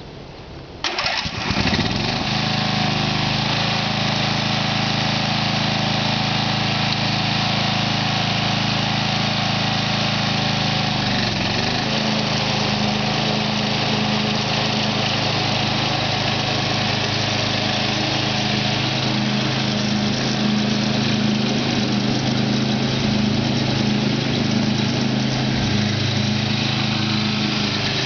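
Simplicity riding lawn mower engine cranking and starting about a second in, then running steadily. There is a brief dip in engine pitch about eleven seconds in.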